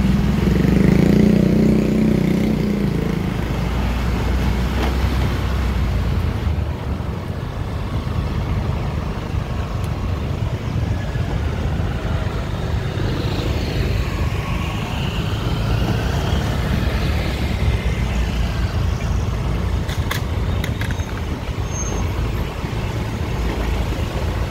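Steady traffic noise: motorcycle, car and truck engines running close by, with a louder engine rumble in the first few seconds.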